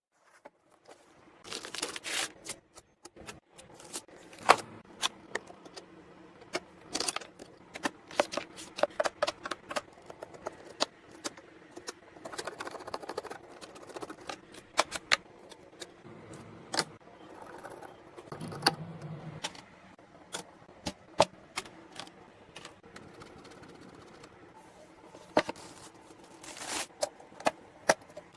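Computer hardware being handled and fitted together: scattered sharp clicks, taps and light rattles of plastic and metal parts, with a few short scraping rustles.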